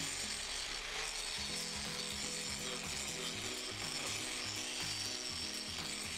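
Angle grinder grinding down a weld on steel: a steady, high, hissing grind. Background music with a stepping bass line plays along with it.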